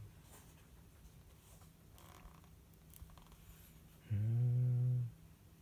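A man humming one low, steady note for about a second near the end, a thinking 'mmm' while studying; otherwise quiet room tone.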